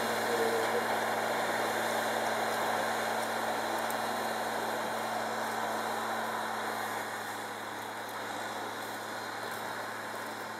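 New Holland T6090 tractor's six-cylinder diesel engine running steadily while pulling a plough, growing fainter over the last few seconds.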